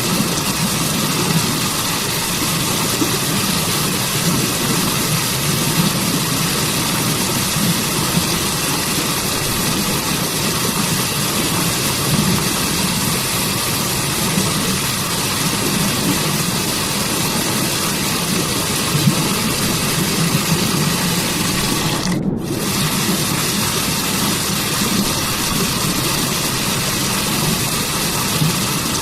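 Waterfall rushing steadily, a continuous water noise fullest in its low rumble. About three-quarters of the way through, the upper hiss drops out for an instant.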